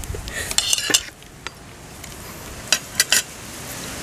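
Metal spoons clinking and scraping against plates and bowls while eating, with a short run of scraping in the first second and three sharp clinks close together about three seconds in.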